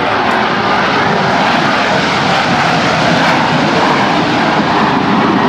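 Jet engines of four F/A-18 Hornets flying past in tight diamond formation: a loud, steady roar.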